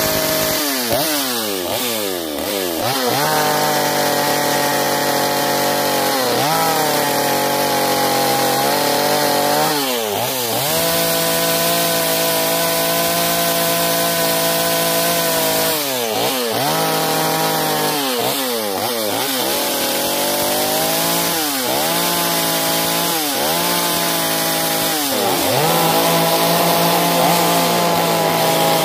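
Stihl two-stroke chainsaw running at high revs as it cuts into a wooden log. The throttle is let off and opened again several times, so the engine speed drops and climbs back up.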